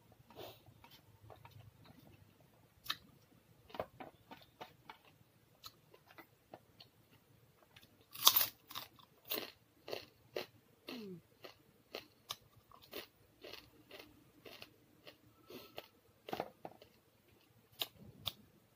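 Close-up chewing and crunching of crisp fried food, a string of sharp irregular crunches with the loudest about eight seconds in.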